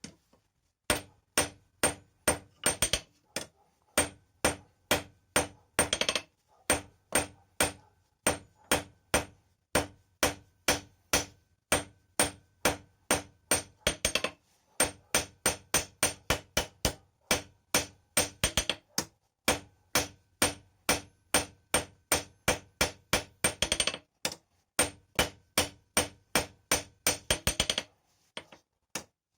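Blacksmith's hand hammer striking hot steel on an anvil, a steady run of blows about three or four a second, each ringing the anvil, broken by a few short pauses. This is the drawing-out of an awl being hand-forged.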